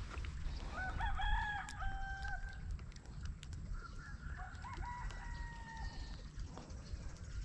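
A rooster crowing twice, each crow a run of held, pitched notes, the first about a second in and the second near the middle, over a steady low rumble of wind on the microphone.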